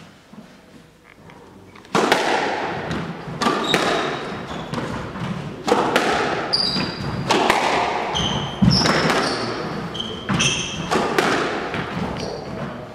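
Squash rally: the ball cracking off rackets and walls again and again, echoing around the court, with players' shoes squeaking on the wooden floor. Play starts about two seconds in, after a short quiet spell.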